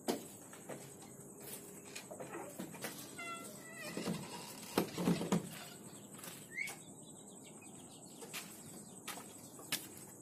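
Quiet night ambience of faint scattered clicks and knocks, with a short pitched animal call about three seconds in and a brief rising chirp a little past the middle.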